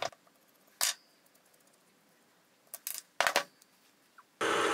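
A few sharp metallic clicks as the steel parts of a mini lathe tailstock are handled and separated: one about a second in and a short cluster around three seconds. Near the end a milling machine starts running with a steady hum.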